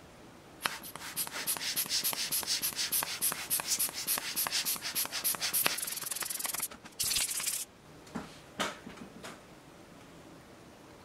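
Rapid back-and-forth rubbing on a small watch, about four to five scratchy strokes a second for some six seconds, then a short hiss and a few light clicks as it is handled.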